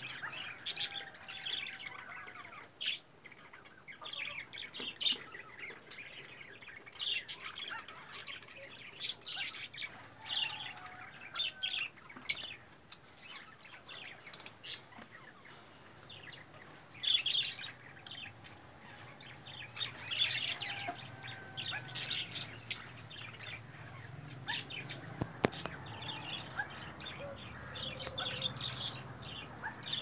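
Birds chirping in short, repeated high calls throughout, with a few sharp clicks between them.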